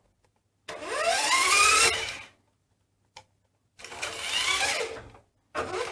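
Electric drive motor and gears of a Power Steel R/C toy fire engine whirring in three short bursts, the first rising in pitch as the motor spins up; the drive works again after battery-compartment corrosion was cleaned up.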